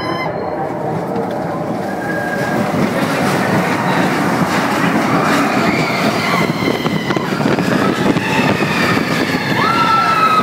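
Expedition Everest roller coaster train running on its track with a steady rumble of wheels. From about six seconds in, riders begin yelling, growing louder near the end.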